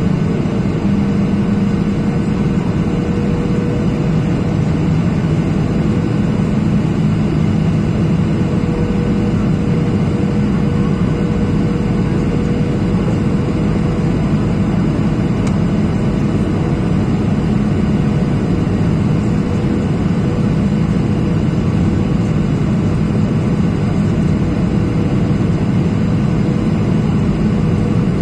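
Steady cabin roar of a Boeing 737-800 on approach: its CFM56-7B turbofan engines and the airflow past the fuselage, with a steady mid-pitched tone running through it.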